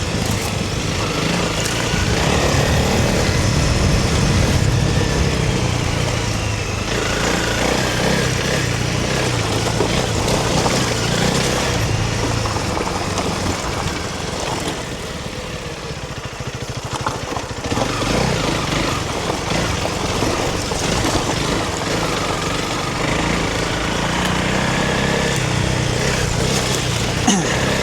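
A Honda CRF300 Rally's single-cylinder engine running steadily while the bike is ridden, going a little quieter for a few seconds just past the middle.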